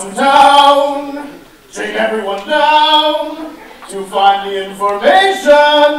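A man singing loudly without accompaniment, in four long phrases of drawn-out held notes.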